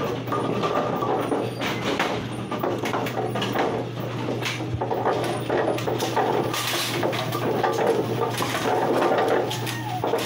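AMF 82-90XL bowling pinspotter running. A steady motor hum carries through, with irregular rattles and clanks from the mechanism.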